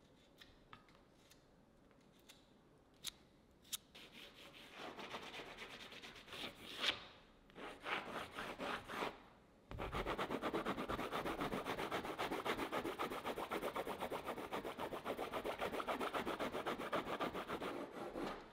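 A pink drawing stick rubbed on stretched canvas. A few light taps come first, then scattered scraping strokes. About halfway through comes a long run of rapid back-and-forth scribbling, the loudest part, which stops just before the end.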